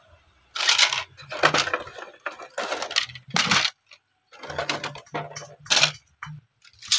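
Scrap CD-ROM drive circuit boards clattering and clinking as they are handled and lifted off a plastic scale tray, in a series of short rattling bursts.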